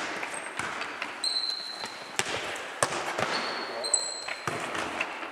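A foot tennis ball being kicked and bouncing on a sports hall's wooden floor, heard as a string of sharp, irregular knocks. Brief high-pitched squeaks of shoes on the hall floor come in between.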